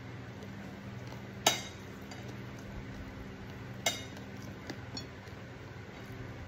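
Ceramic dishes clinking: two sharp, ringing clinks about a second and a half and about four seconds in, then a few fainter ticks, over a steady low hum.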